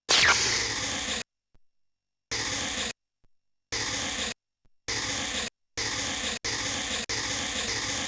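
Synthesized lightsaber sound effect: a noisy hum that switches on with a quick falling sweep, then cuts in and out in short blocks of about half a second, before a longer stretch of about two seconds.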